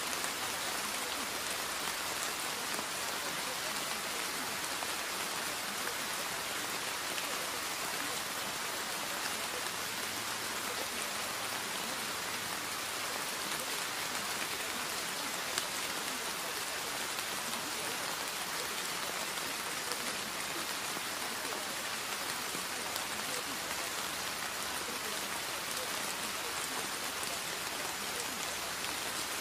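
Steady rain falling on a surface: an even hiss with a few faint scattered drop ticks.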